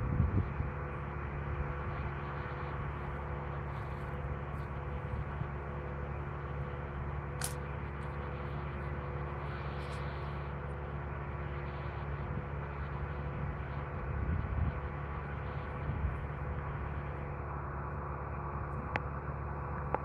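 An engine running steadily at a constant speed, an even drone that does not change, with a couple of short clicks over it.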